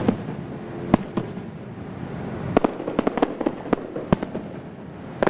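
Aerial firework shells bursting overhead: a sharp bang as the sound begins, two more about a second in, then a rapid run of crackling reports followed by one deep bang.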